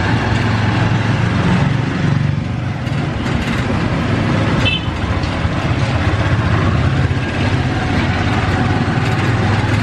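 Engine and road noise of a moving small passenger vehicle, heard from inside its open-sided cab as a steady low hum. A brief high-pitched chirp sounds about halfway through.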